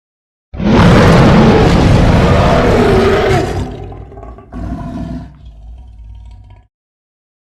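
Designed monster roar sound effect. It starts about half a second in and is loud for about three seconds. It then fades, swells again more weakly about five seconds in, and ends in a low rumble that cuts off suddenly.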